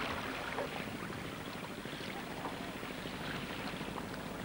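Steady outdoor wash of wind and water at the shore, with a few faint ticks.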